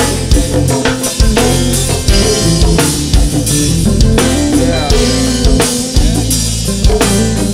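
Loud hip-hop beat with heavy bass and a drum kit, no vocals.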